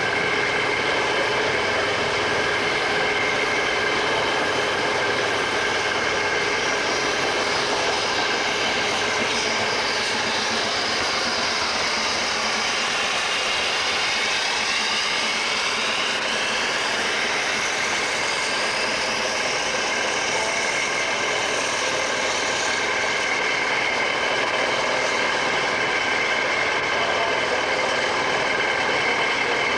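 Steady drone of a stationary diesel railcar, with the narrow-gauge steam locomotive "Mountaineer" passing close by; the sound shifts in pitch through the middle as it goes past.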